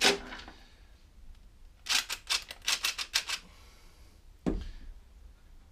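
DeWalt cordless driver on a long socket extension running briefly at the start as an engine-mounting bolt on the mower deck comes loose. A quick run of about eight sharp clicks follows, then a single knock about four and a half seconds in.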